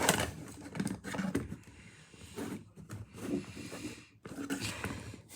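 Irregular handling noises: light knocks, clicks and rustles as the plastic clip fan is picked up and turned about. The fan is switched off, so there is no motor or blade noise.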